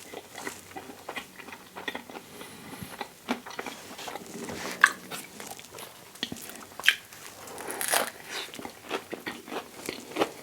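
Close-up eating sounds: biting and chewing a vegan sausage and cheese English-muffin sandwich, with irregular wet mouth clicks and a few sharper crunches.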